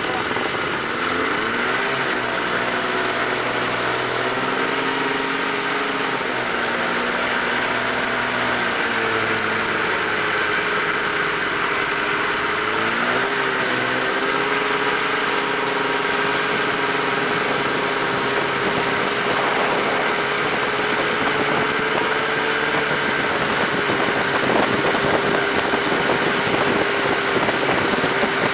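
Mini buggy's 600cc snowmobile engine running, its pitch rising and falling a few times in the first half as the throttle changes, then holding steady for the second half.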